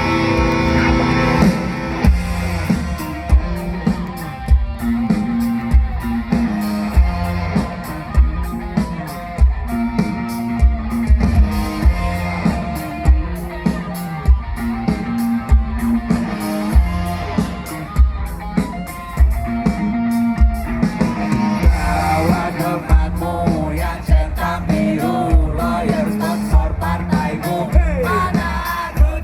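Rock music from a band with electric guitar, bass and drum kit. A held chord opens, and a steady drum beat comes in about two seconds in.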